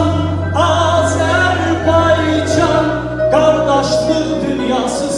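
A man singing into a microphone over a musical accompaniment with held bass notes. He sings two long phrases, the second starting a little after three seconds in.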